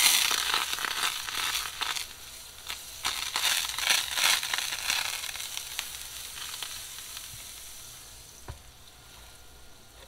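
Butter sizzling with many small pops as a stick of butter is rubbed across a hot electric griddle set to about 350 degrees. The sizzle starts suddenly and is loudest over the first five seconds, then dies down toward the end.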